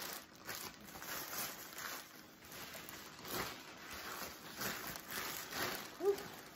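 Plastic shipping bags rustling and crinkling as they are handled and sorted, in uneven spells of crackling noise.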